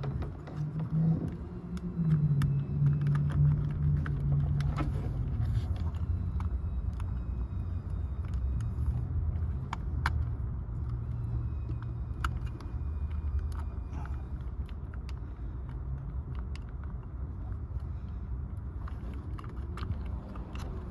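Small, sharp clicks and taps of plastic and metal parts being handled as a small DC motor is fitted into a door lock actuator housing, over a steady low rumble that is heavier during the first few seconds.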